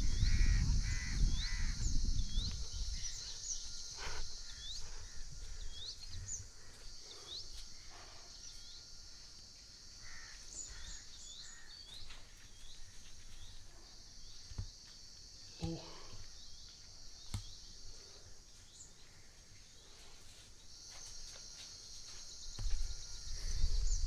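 Rural outdoor ambience: a steady high-pitched insect drone with small birds chirping throughout, and a crow cawing a few times near the start. A few soft knocks and low microphone rumble come and go.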